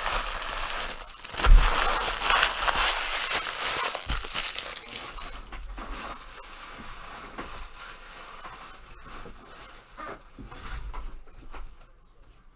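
Trading card pack wrappers crinkling and being torn open, with the loudest rustling in the first half. After that come quieter handling noises and a short flurry of crinkling near the end.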